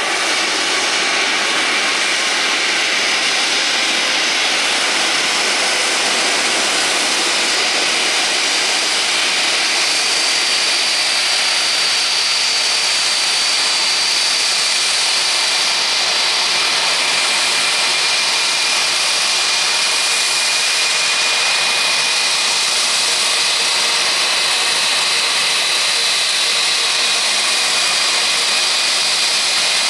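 Airbus A320-232's IAE V2500 turbofan engines running at low taxi thrust as the airliner turns to line up on the runway: a steady high-pitched whine over an even rush of jet noise.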